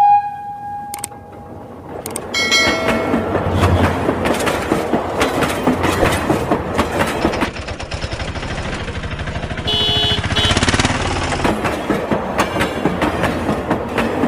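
Train sounds: a steady clickety-clack of wheels over rail joints, with a short whistle blast about two seconds in and another high whistle around ten seconds. A ringing tone fades away in the first second.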